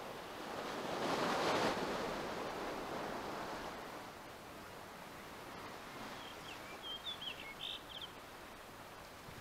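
Ocean surf washing over rocks, swelling about a second in and fading away over the next few seconds. A few short, high bird chirps come near the end.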